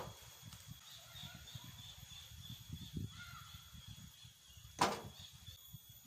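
A chunk of stone tossed into a wheelbarrow already holding stones, landing with one sharp clack about five seconds in. Low scuffing and handling noise comes before it.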